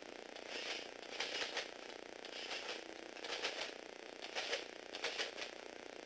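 Plastic Lego Technic gears and linkages of a model bulldozer working in short bursts, a grinding, ratcheting clatter about six times, each burst under half a second.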